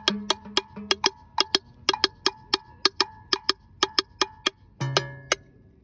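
Rumba hand percussion: a fast, even pattern of sharp struck clicks, about five a second, with ringing drum tones over the first second and one low drum stroke near the end.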